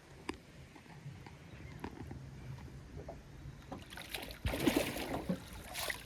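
A few light knocks, then about four seconds in a burst of splashing water lasting about two seconds, as a big Murray cod is let go over the side of a small aluminium boat.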